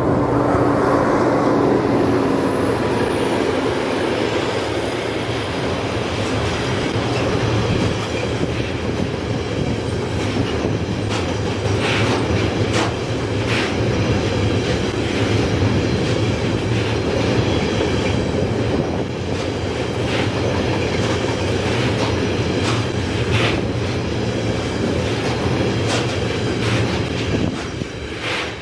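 Container freight train passing close by: the wagons' wheels run over the rails in a steady rumbling roar with scattered sharp clicks and clacks. A tone falls in pitch in the first few seconds, and the sound drops away near the end as the last wagons pass.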